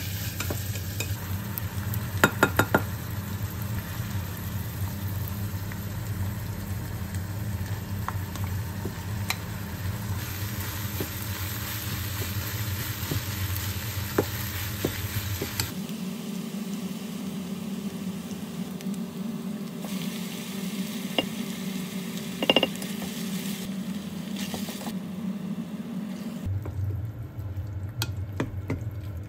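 Minced meat and chopped vegetables sizzling in a small pot while a wooden spatula stirs and scrapes through them, with a few sharp taps of the spatula against the pot about two seconds in.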